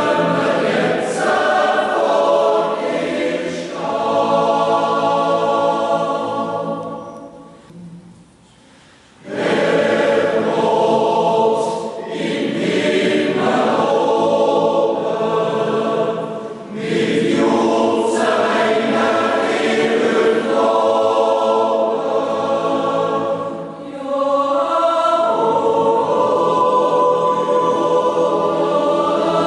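Mixed yodel choir singing a yodel mass in full sustained chords with no spoken words. The voices fade out about seven seconds in and all come back in together around nine seconds.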